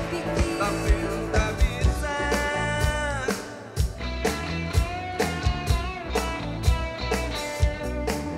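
Live rock band playing: electric guitars, bass and drum kit with a steady beat, and a woman singing long held notes over it.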